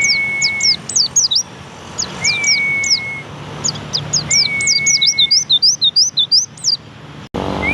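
Pleci (white-eye) singing in fast runs of short, high, downward-sweeping chirps. Alongside it, a long steady whistled tone comes back about every two seconds. The sound breaks off sharply near the end.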